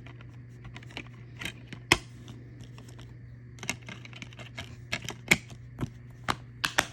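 Plastic DVD cases being handled and slid back into their box set: a string of irregular sharp clicks and clacks over a steady low hum.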